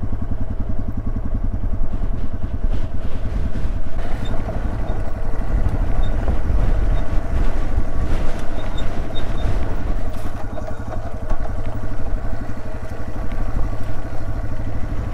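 Yamaha TW200's single-cylinder four-stroke engine running steadily at low speed, with a rapid, even pulsing beat.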